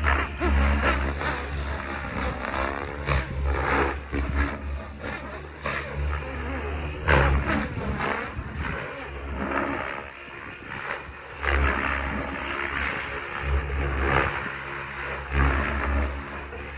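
Goblin Black Thunder 700-size electric RC helicopter flying, with the whine of its electric motors and the rush of its rotors. Its pitch and loudness rise and fall throughout.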